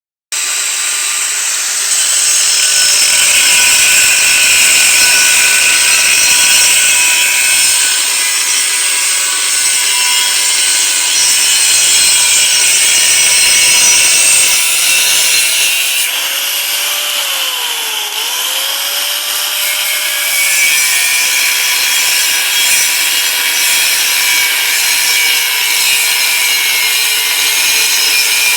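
A power tool grinding a stainless steel pipe: a steady, loud, rasping hiss with a faint whine, which keeps going without a break.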